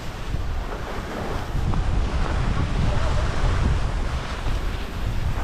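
Wind buffeting the microphone of a moving skier, a heavy, uneven rumble, over the steady hiss and scrape of skis sliding on packed snow.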